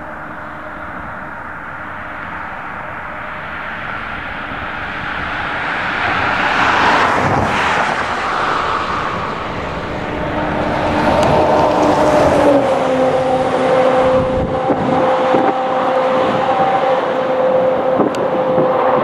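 A road vehicle passing with a rush of noise about seven seconds in, over steady tones that grow louder in the second half as an approaching train nears the crossing.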